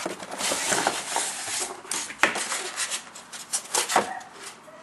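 Cardboard box and its packaging being handled and opened: rustling and scraping with scattered sharp clicks and knocks, the loudest about two seconds in.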